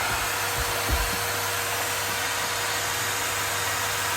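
Two Numatic Henry cylinder vacuum cleaners, a standard Henry and a Henry XL Plus, running together: a steady whooshing whine with a constant hum. A brief low thump about a second in.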